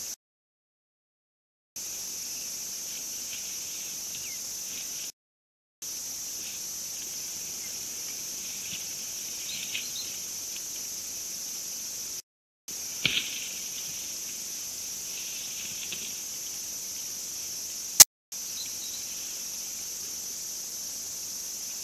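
Steady high insect chorus with a few faint short chirps over it. A brief knock comes about 13 seconds in and a sharp click about 18 seconds in, and the sound cuts out completely several times for a second or less.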